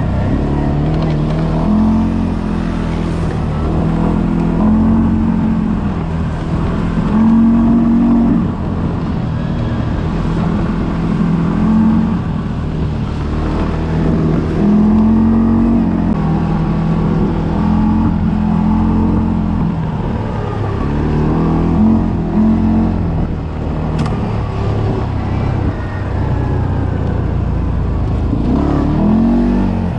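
ATV engine running under changing throttle, its pitch rising and falling again and again as it is revved and eased off, over a steady low rumble. A single sharp click about 24 seconds in.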